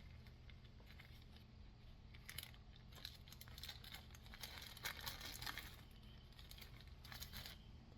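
Faint crinkling and light clicks of a small part and its packaging being handled, over a low steady hum.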